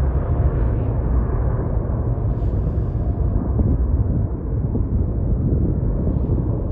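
Boeing 777 airliner's twin jet engines at takeoff thrust as it climbs away: a loud, deep rumble, strongest in the bass, easing slightly as it recedes.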